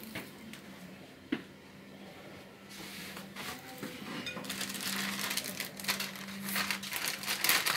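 Plastic zip-lock bag of crushed crisps crinkling and rustling as it is handled and opened, starting a few seconds in and growing louder. Earlier there is one sharp knock.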